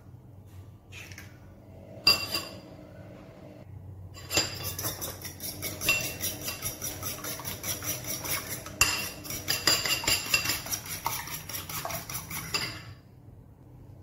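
A metal utensil beating eggs in a bowl: a quick, even run of clinking strokes for about eight seconds, after a single sharp clink about two seconds in.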